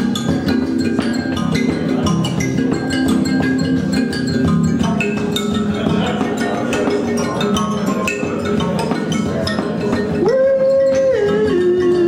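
Experimental music on percussion instruments and sound-makers: a dense, continuous patter of short struck notes, overlapping at many pitches. About ten seconds in, a held pitched note sounds and then steps down to a lower note.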